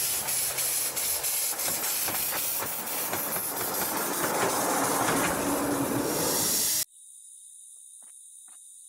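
Steam-locomotive hiss with rapid clicking chuffs through it, of the kind laid over model-train footage as a sound effect. It is loud and even, and it cuts off abruptly about seven seconds in; a few faint small clicks follow.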